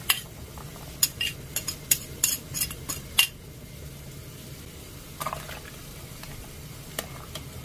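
A spoon scraping and clinking against a bowl as chili seasoning sauce is spooned into a pot, with a quick run of sharp clinks in the first few seconds and a few more later. A steady low hum runs underneath.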